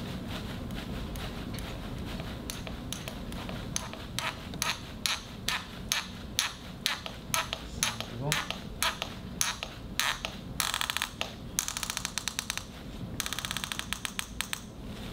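Surgical fixation instrument driving the graft's fixation device into bone: a run of sharp clicks about two a second, growing louder, then three short bursts of fast rattling clicks near the end.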